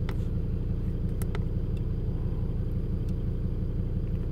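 Volvo S60 D5's five-cylinder turbodiesel idling with a steady low rumble, with a couple of faint clicks about a second in.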